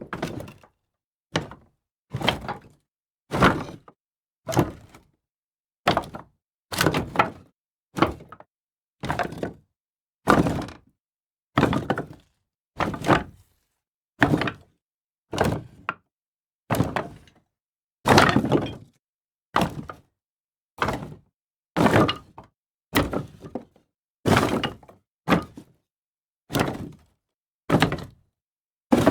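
A series of separate takes of pieces of wood being tossed down, each a clattering knock that dies away within about half a second, roughly one a second.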